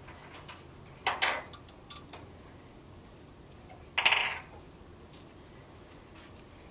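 Steel fixturing parts and hand tools being handled, giving short metallic clinks and clatters: one about a second in and a louder one about four seconds in, each ringing briefly, with a few lighter clicks between.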